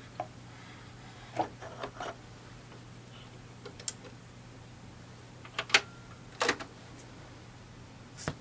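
Turntable being handled: scattered clicks and knocks as the tonearm is lifted and the stylus is set down on a spinning vinyl record, over a steady low hum.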